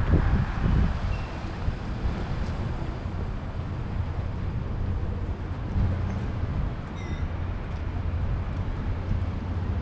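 Steady low rumble of city road traffic, with a brief faint high note about seven seconds in.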